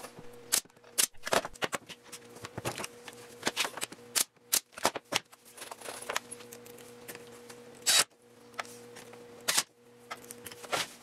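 Bostitch pneumatic brad nailer firing brads into a plywood side, heard as a string of sharp clicks and pops, with two louder pops about eight and nine and a half seconds in.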